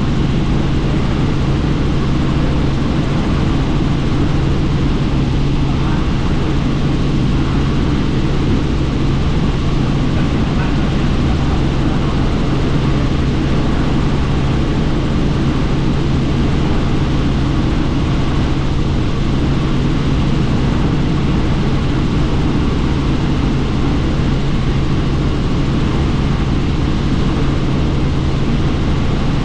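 Helicopter in steady cruise heard from on board: continuous engine and rotor noise with a constant low hum, unchanging throughout.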